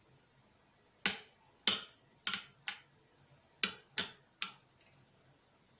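A steel spoon clinking against the side of a small bowl while stirring condensed milk into fresh cream: about seven sharp clinks, in a run of four and then a run of three.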